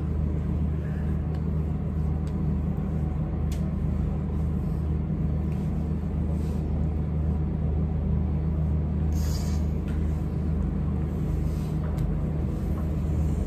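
Steady low machine hum with a constant rumble that does not change. A few faint, brief scuffs sound over it, the clearest about nine seconds in.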